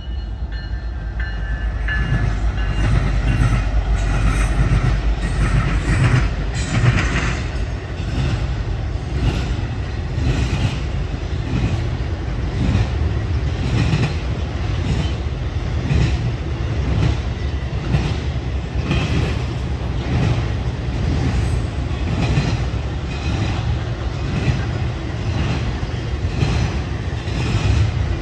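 Norfolk Southern diesel-electric freight train passing with its intermodal trailer and container cars. The locomotive's engine is heard in the first few seconds, then a steady rumble of cars with a regular clickety-clack of wheels over rail joints, about once a second.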